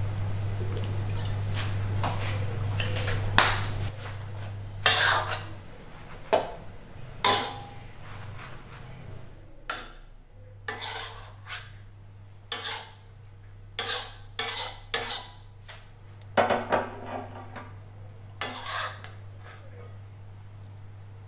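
Metal spatula scraping and clanking against a wok as stir-fried rice vermicelli is tossed and turned: about a dozen separate strokes, over a low steady hum.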